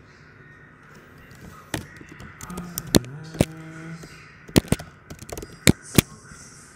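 Computer keyboard keys clicking in irregular strokes as code is typed. A low pitched sound with a steady tone is heard for about a second and a half near the middle.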